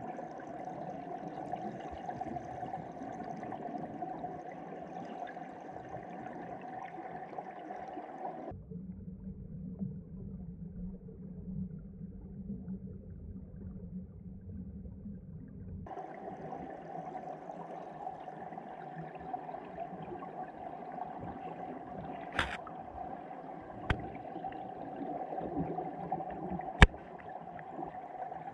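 Underwater ambience of canal water heard through a submerged camera's waterproof housing: a steady muffled rush with a hum, changing to a deeper rumble for several seconds in the middle. A few sharp clicks come near the end, one much louder than the rest.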